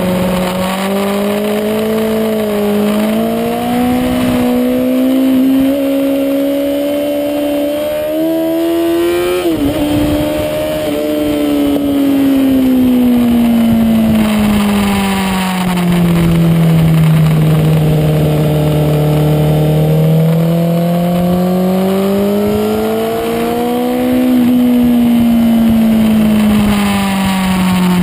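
Honda CBR1000RR sport bike's inline-four engine running on track, heard from the bike itself. The engine note climbs steadily for several seconds, breaks up with a short crackle about nine to ten seconds in, then falls slowly, holds low, rises again and falls away toward the end.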